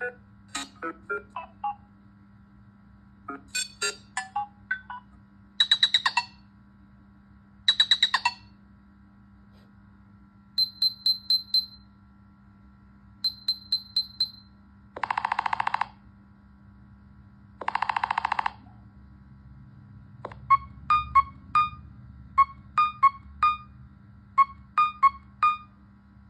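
Nothing Phone (1) ringtones previewed one after another on the phone's speaker: short electronic patterns of beeps and chirps that change from tone to tone. Midway come two harsh buzzy blasts about two seconds apart, and near the end a quick beeping figure repeats several times.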